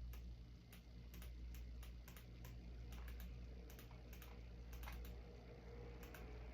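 Faint computer keyboard typing: irregular key clicks in short runs over a steady low hum.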